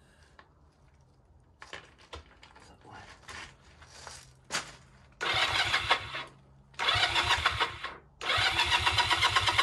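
1982 Honda CM125's small twin-cylinder four-stroke engine being cranked on the starter in three bursts of about a second each, turning over with an even rapid pulse without catching. A few light clicks and knocks come before the first burst.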